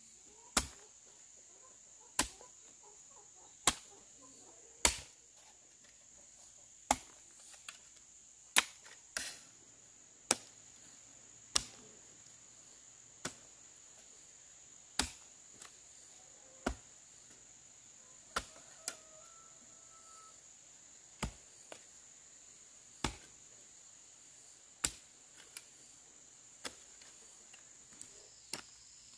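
Repeated sharp chopping blows of a hand tool, about one every one and a half to two seconds, the first several loudest. A steady high insect trill runs underneath.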